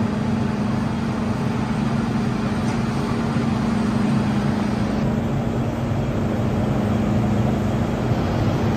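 Stationary MTR M-Train metro car with its doors open, its onboard equipment giving a steady hum with a constant low tone.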